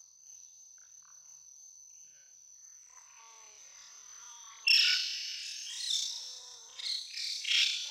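Infant macaque screaming, a run of shrill, high-pitched distress cries that start suddenly about two-thirds of the way in as an adult grips it. Before that there is only a faint steady high tone.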